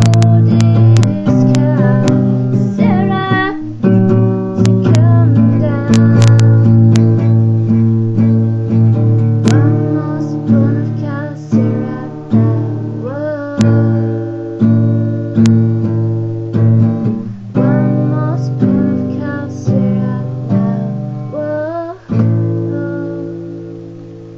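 Acoustic guitar strumming chords, the strums coming about once a second in the second half, with a last chord struck near the end and left ringing as it fades.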